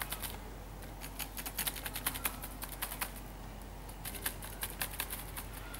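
Typing on the newly replaced keyboard of an Asus Eee PC Seashell netbook: quick, uneven key clicks as the keys are tested one by one, with a short pause about halfway.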